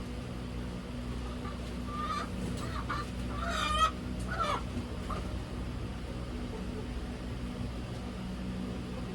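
Backyard chickens calling: a run of short clucks and squawks, with one loud call about three and a half seconds in. A steady low hum runs underneath.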